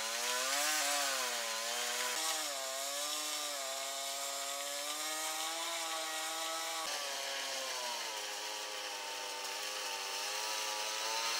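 Small gasoline snowblower engine running under load while clearing deep snow, its pitch rising and dipping as it works through the drifts, over a steady hiss.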